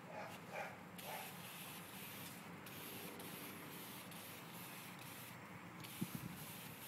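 Handheld paint sprayer hissing steadily as it sprays metal paint onto a barbecue grill, with a brief break about five and a half seconds in.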